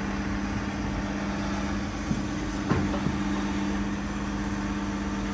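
2021 Cat 349 hydraulic excavator's diesel engine idling steadily with a constant hum, the machine standing still. A few faint knocks come through about halfway in.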